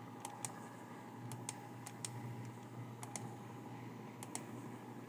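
Faint, sparse clicks of a computer mouse and keyboard, several in quick pairs, over a steady low hum.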